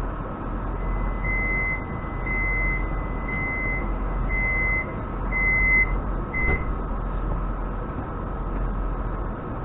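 An electronic warning beeper sounding six times, about once a second, over the steady hum of a standing electric train, with a single knock just as the beeps end.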